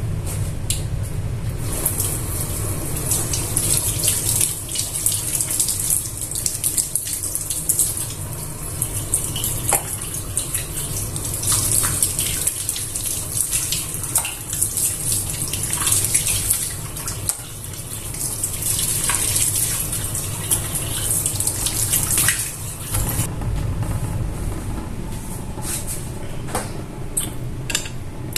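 Water running from a kitchen tap into a sink, with scattered knocks and clinks, shut off about five seconds before the end.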